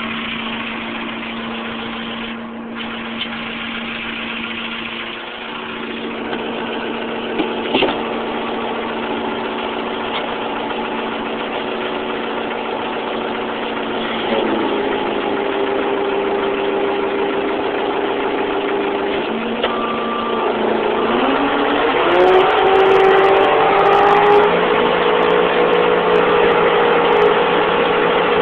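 Lull telehandler's diesel engine running steadily, with a couple of sharp clicks about a quarter of the way in. About halfway its pitch shifts, and a little past two-thirds of the way it revs up with a rising pitch and holds at the higher speed.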